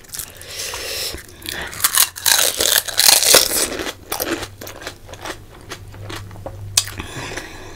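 Close-miked eating of a whole panipuri: its crisp fried shell crunching as it is bitten and chewed, loudest about two to three and a half seconds in, then softer, wetter chewing.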